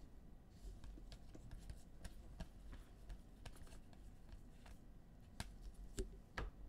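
Basketball trading cards being flipped through and slid against one another by hand: a faint, uneven run of small clicks and snaps, with a few sharper ones near the end.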